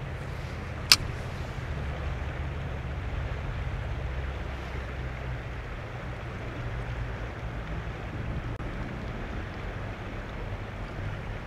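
Steady rush of river water, with a low wind rumble on the microphone underneath. A single sharp click about a second in.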